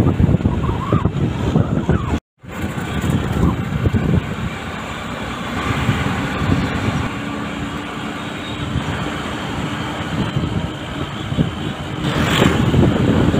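Road traffic noise and wind buffeting the microphone while moving along a city street. The sound cuts out for an instant about two seconds in, and there is a short hiss near the end.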